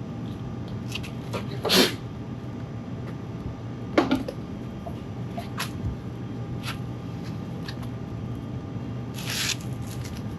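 Sandpaper rubbing on motorcycle bodywork in a few short scratchy strokes, about two seconds in, at four seconds and a longer one near the end, with light ticks between, over a steady low hum.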